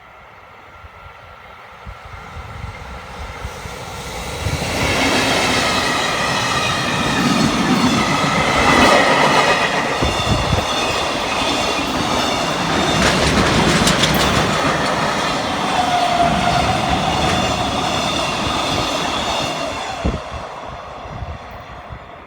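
Freight train hauled by a JR Freight electric locomotive passing close by, growing loud about four seconds in, running past for some fifteen seconds, and fading away near the end.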